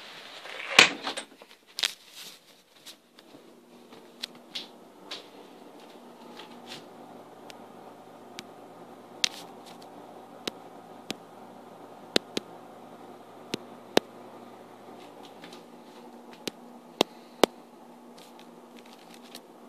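A door knocks shut about a second in. After that, a quiet room with a faint steady hum and scattered sharp clicks and taps.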